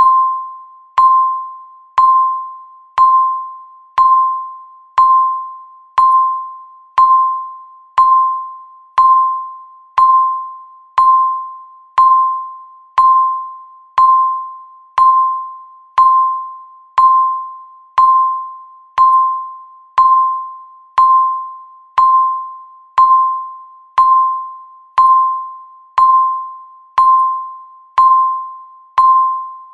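Electronic countdown-timer beep sounding once every second, a single chime-like tone with a sharp start that fades away before the next. It marks each second left on the countdown.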